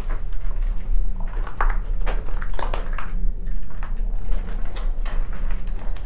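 Irregular footsteps and scuffs on a gritty tunnel floor, with a steady low rumble underneath.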